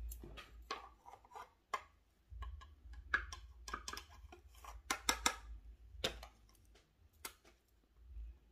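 Plastic clicks and taps from handling an Airspun loose-powder tub, its lid being worked open and the container tapped: an irregular scatter of sharp little clicks, thickest in the middle.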